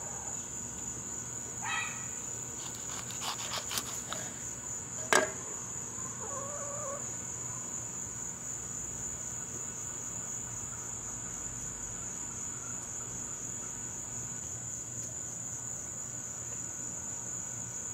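A steady high-pitched insect chorus, and in the first five seconds a serrated knife cutting a small pepper on a wooden board: a few short cuts, then a sharp knock about five seconds in.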